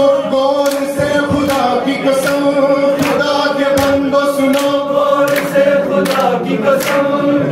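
Men's voices singing a devotional manqabat together in long held notes, led by one voice on a microphone, with hand claps keeping time throughout.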